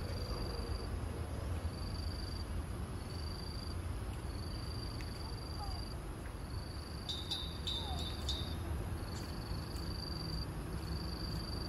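An insect chirping in repeated high, even phrases, each about a second long with short gaps, over a steady low rumble. A few short, sharp high calls come about two-thirds of the way through.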